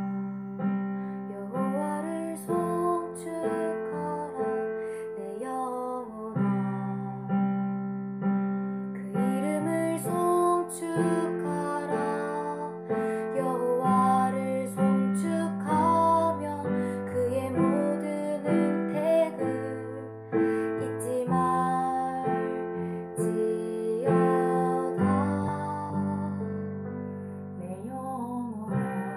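Piano-led instrumental music: held chords with a melody line over them.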